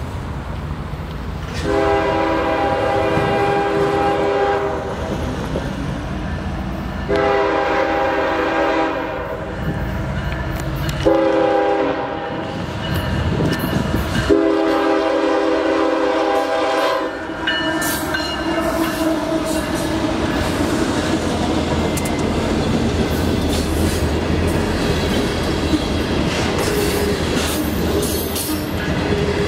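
CSX freight train's diesel locomotive air horn sounding the grade-crossing signal: two long blasts, one short, one long. Then the freight cars roll by with a steady rumble, wheel clicks over the rail joints and a faint wheel squeal near the end.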